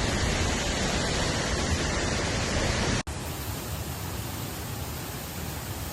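Steady rushing of water falling from a 70-metre waterfall. About three seconds in it breaks off for an instant and resumes slightly quieter.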